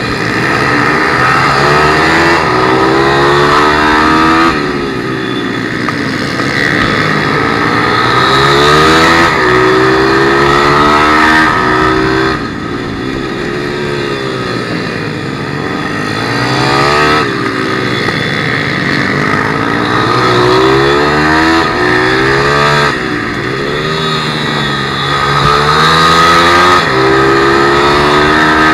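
A 160cc pit motard's single-cylinder four-stroke engine racing, heard onboard. The revs climb in repeated rising sweeps and drop sharply several times as the rider shifts or rolls off for corners.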